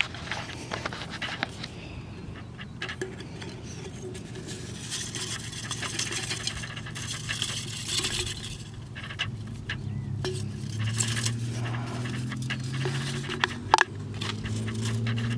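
Aluminium beer can being handled and tipped to free a trapped whiptail lizard: thin-metal scraping and clinking with many small clicks and rustling of dry twigs, and one sharp knock near the end.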